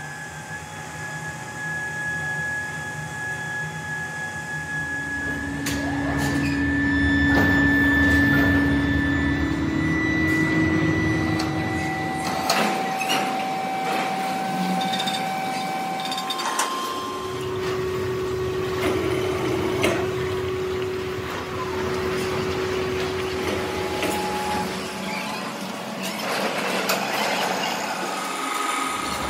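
Workshop machinery running, with steady whining tones that change pitch every few seconds and scattered knocks, typical of metal being machined; the sound shifts abruptly a few times.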